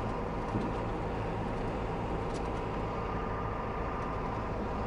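John Deere 4755 tractor's six-cylinder diesel running steadily as it pulls a grain cart through the field.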